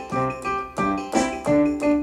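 Casio LK-520 light-up electronic keyboard played in a piano sound: a tune of short struck notes, about three a second, each dying away, with lower notes beneath.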